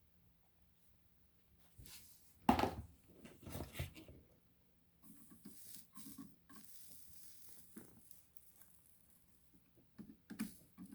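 Workbench handling noises while soldering wires onto a battery pack: a sharp knock about two and a half seconds in, more knocks and clatter just after, a stretch of faint hiss, and a few light clicks near the end.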